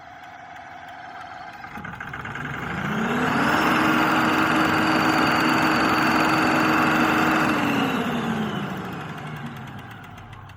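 Cummins QSN14 inline-six diesel engine revved from idle about three seconds in, held at a higher speed for about four seconds, then let fall back to idle. The owner puts its sound down to an injector problem.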